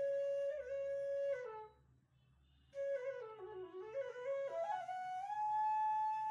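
Background music: a solo flute holds a long note, slides down in a short run, stops briefly about two seconds in, then plays a phrase that dips low and climbs to a long, higher held note.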